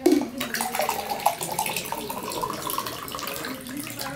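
Water poured from a plastic bottle into a drinking glass, a steady gurgling pour that starts suddenly and rises slightly in pitch as the glass fills.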